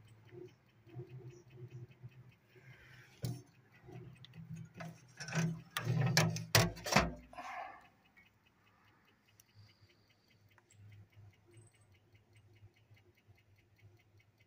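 Fast, even ticking over a faint low hum, with a few louder knocks and clatters between about three and seven and a half seconds in.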